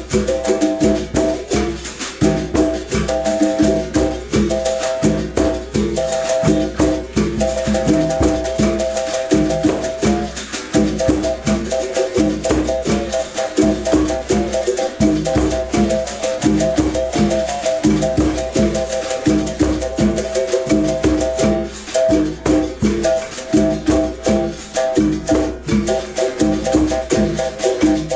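Berimbau music: the steel-wired musical bow struck in a quick, steady rhythm, its twanging notes alternating in pitch, with the rattle of a shaker over it.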